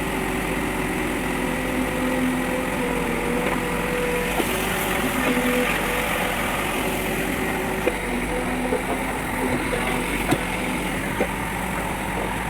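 Case backhoe loader's diesel engine running steadily at work, its tones shifting slightly, with a few sharp knocks in the second half.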